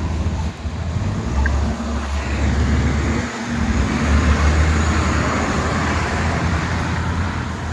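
Road traffic on a snowy street: a vehicle's tyre and engine noise swells in the middle and eases off, over a steady low rumble.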